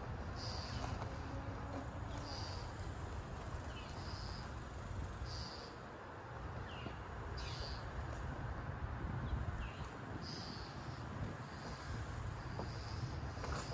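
A short high chirp repeating about once a second, from a small calling animal, with a few brief falling notes between the chirps, over a steady low rumble.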